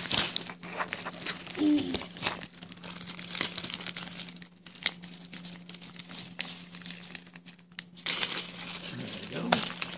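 Small plastic bags of keycaps crinkling and rustling as they are opened and handled, with many light clicks, and a louder burst of rustling near the end.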